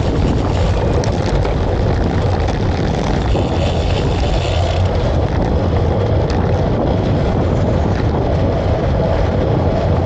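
Wind buffeting the microphone: a loud, steady low rumble with a few faint ticks.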